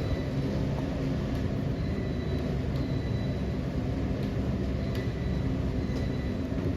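Passenger train rolling along the track, heard from on board: a steady low rumble of the running gear with occasional faint clicks.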